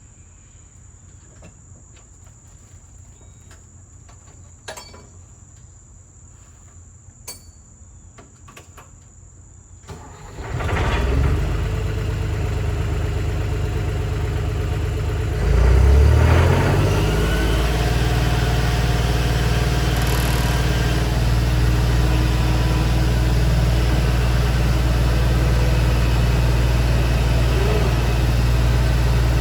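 New Holland skid steer's diesel engine starting about ten seconds in. It revs up around sixteen seconds and then runs steadily at higher speed. Before the start there are only a couple of faint clicks.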